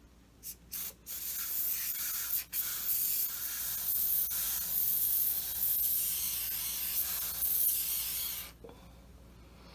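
Preval aerosol spray unit spraying pink alcohol-based body paint onto a face: two short spurts, then a long hiss with one brief break, which stops near the end.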